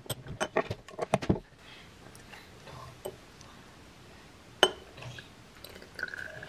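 Small cosmetic vials and a glass beaker being handled on a wooden tabletop while hair-mask liquid is poured: a quick run of light clicks and clinks over the first second and a half, then one sharper click a little past the middle.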